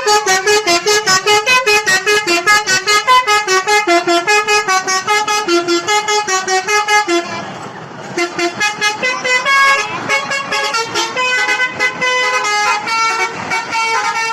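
Bus 'telolet' musical horn playing a rapid tune of short tooting notes, about five a second. It breaks off briefly about halfway, then carries on with more notes.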